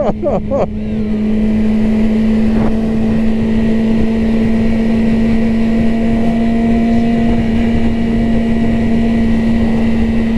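Yamaha sport motorcycle engine running at a steady cruising speed, its pitch holding level, with wind rushing over the microphone.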